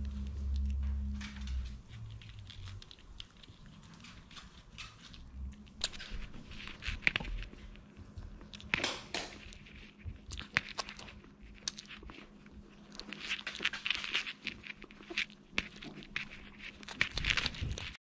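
Irregular rustling, scratching and sharp clicks from Maltese dogs moving about, with fur and paws brushing and knocking against the camera.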